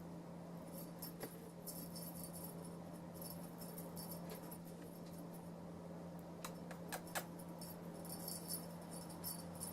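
A small jingle bell rattling in short, repeated bursts as a kitten plays with a toy, with a few sharp taps about seven seconds in, over a steady low hum.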